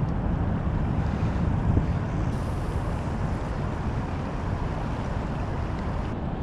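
Wind buffeting the camera microphone: a steady low rumble with no distinct events.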